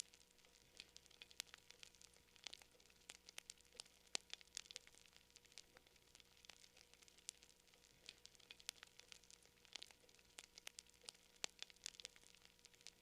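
Wood fire crackling: irregular sharp pops and snaps, several a second, over a faint steady hiss and hum.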